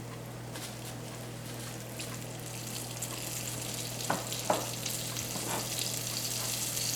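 Floured ground-bison patties sizzling in a hot cast iron skillet, the sizzle growing louder as they fry. Two sharp clicks about four seconds in, over a steady low hum.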